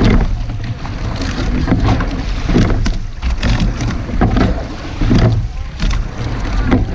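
Sweep-oar rowing shell under way, with the oars working through their strokes in a steady rhythm of about one stroke every two and a half seconds: a clunk and surge at each catch and drive, and water rushing along the hull. Wind rumbles on the microphone underneath.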